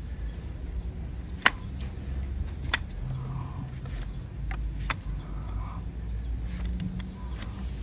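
A broad hoof knife pares horn from a donkey's hoof on a wooden block. It gives about five sharp cutting clicks, the loudest about a second and a half in, with softer scraping strokes between them.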